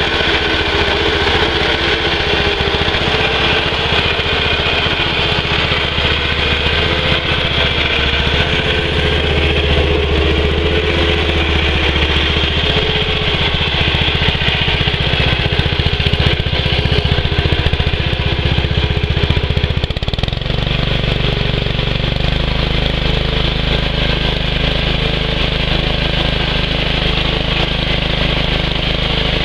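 Original Cub Cadet garden tractor's single-cylinder Kohler engine running steadily through a newly fitted upright exhaust stack; its tone changes about twenty seconds in.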